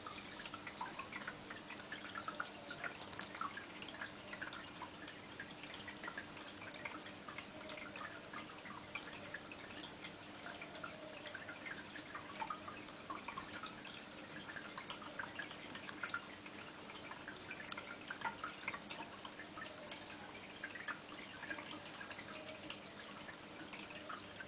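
Aquarium water dripping and trickling: many small quick plinks that never stop, over a steady low hum.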